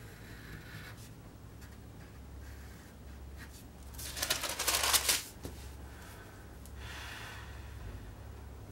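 A sheet of tracing paper rustling as it is handled and shifted against a drawing board, loudest for about a second near the middle, with a fainter rustle of paper later on. A low steady hum runs underneath.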